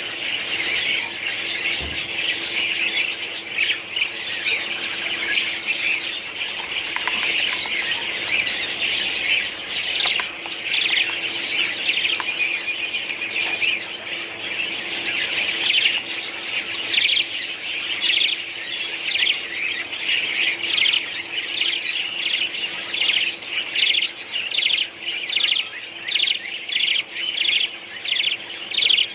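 A colony of budgerigars chattering and chirping all together. In the last several seconds the chatter gives way to a run of repeated sharp chirps, about two a second.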